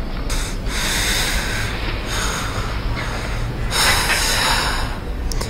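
A man breathing out hard and heavily, three long breaths in a row, over a low steady hum.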